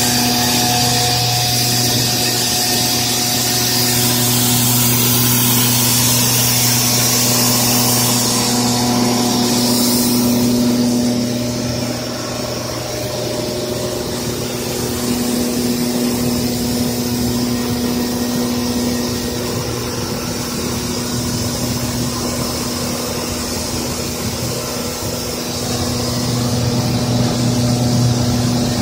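Hexagon paper tube forming machine running: a steady motor hum with a high hiss over it, the hiss and overall level dropping a little about eleven seconds in.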